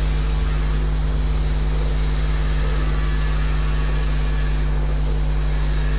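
Steady electrical mains hum, a low buzz with a ladder of evenly spaced overtones, under a constant hiss from the microphone and sound system. It does not change at all.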